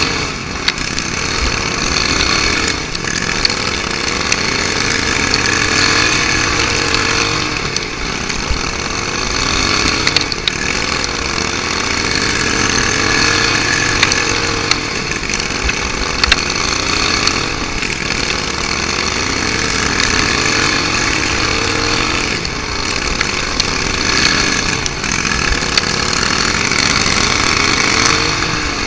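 Racing go-kart engine heard on board a kart on a dirt oval, running hard with its revs rising and falling again and again through the laps.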